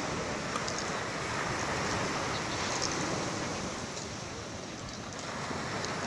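Small Black Sea waves breaking and washing up a pebble beach. The surf swells about two seconds in, eases around the fifth second, then builds again near the end.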